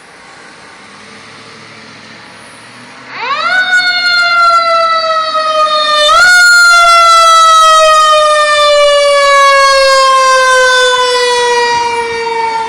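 Fire engine siren winding up sharply about three seconds in, then sliding slowly down in pitch, with a brief rise again about halfway through before it keeps winding down. A low truck engine rumble comes before it.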